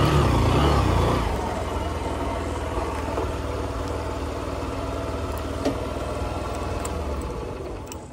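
Honda Shine SP 125's single-cylinder engine running while riding, over a steady rushing noise. It is loudest in the first second, then holds steady and eases off near the end.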